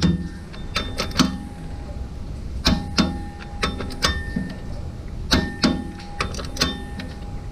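A click-type torque wrench clicking on the flywheel bolts, a dozen or so sharp metallic clicks in small groups, each with a short ring. The bolts are being checked one by one to confirm they are at full torque.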